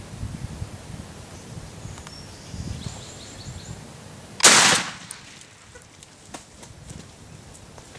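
A single shotgun blast about four and a half seconds in, a sharp report with a short ringing tail, loaded with turkey shot. Before it, a small bird chirps a few short notes over low rustling.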